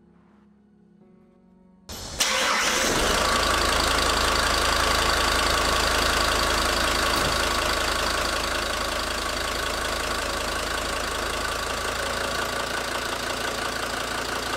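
SsangYong New Korando engine cranking briefly and catching about two seconds in, then idling steadily, freshly filled with new engine oil. The idle settles a little quieter after several seconds.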